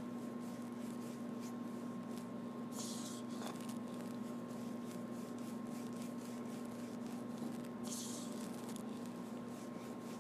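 Steady low hum throughout, with a paintbrush swishing across the backdrop twice, each stroke about a second long and a few seconds apart.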